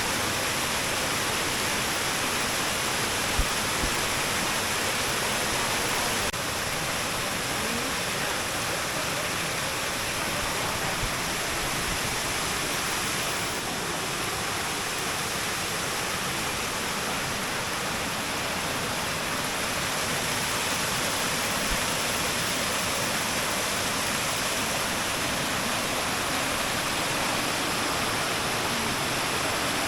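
Waterfall: a steady, even rush of falling water. A brief knock sounds about three seconds in.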